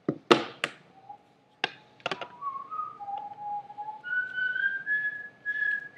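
A person whistling a slow tune in held notes that step up and down and climb higher through the second half. A few sharp taps come in the first two seconds, the loudest just after the start.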